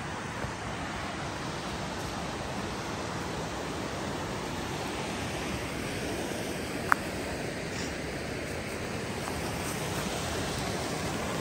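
Steady rush of flowing water. A single sharp click sounds about seven seconds in.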